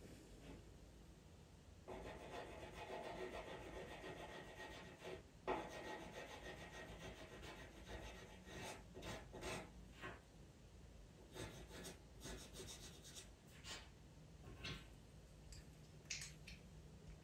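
Pastel pencil scratching faintly on pastel mat paper: a steady stretch of rubbing strokes, then a run of short, separate strokes in the second half. A sharp tap about five and a half seconds in.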